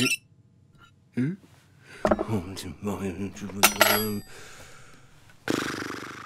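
A cartoon man's wordless voice sounds: a short rising 'hm?' about a second in, then grumbling noises with a sharp clink of cutlery about halfway through. A long sigh follows near the end.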